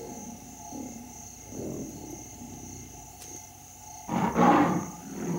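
A lion roars about four seconds in, the loudest sound here, over a steady high chirring of insects such as crickets.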